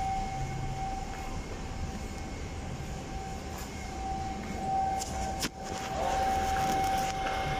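Indoor market background noise with a steady high-pitched hum held throughout, and a short click about five and a half seconds in.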